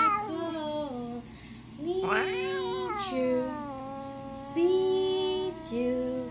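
Orange tabby cat meowing in long, drawn-out meows: one swoops up about two seconds in and slides down, and another held meow starts suddenly louder about four and a half seconds in.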